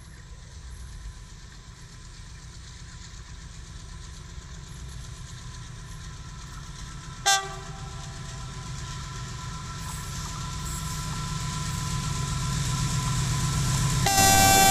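Diesel locomotive approaching, its low engine rumble growing steadily louder. A short horn blast sounds about seven seconds in, and a long, loud horn blast starts near the end.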